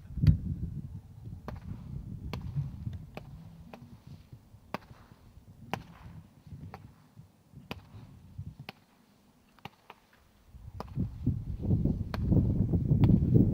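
Consumer fireworks cake firing single shots, sharp pops at uneven gaps of about a second, the loudest just after the start. Wind rumbles on the microphone and swells again near the end.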